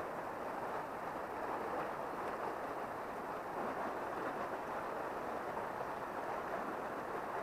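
Steady rush of a small river's water flowing over stony riffles.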